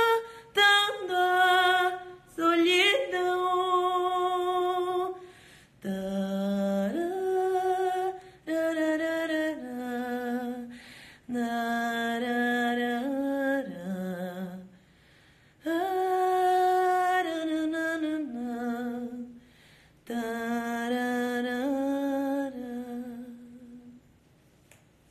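A woman's voice singing unaccompanied: several phrases of long held notes with vibrato and short breaths between them, the last phrase fading out about a second before the end.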